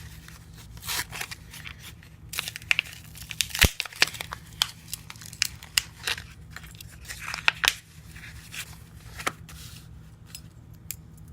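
Crinkly plastic being handled and pulled, rustling and crackling with many short sharp clicks and taps, easing off near the end.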